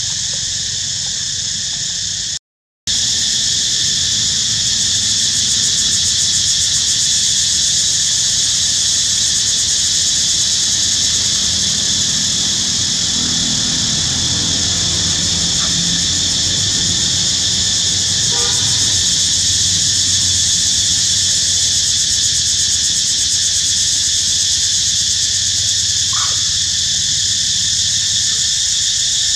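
Dense, steady chorus of insects, a shrill high-pitched drone, broken by a brief dropout near the start. A faint short squeak sounds near the end.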